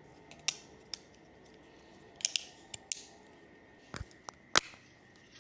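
A series of sharp clicks and taps, about eight of them spread unevenly, the loudest a little past four and a half seconds in: small hard objects being handled.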